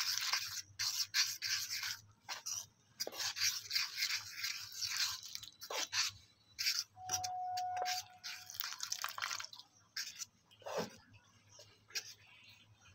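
A fork stirring and scraping through a wet gram-flour batter in a metal bowl in repeated scrubbing bursts with short pauses, as water is trickled in at the start.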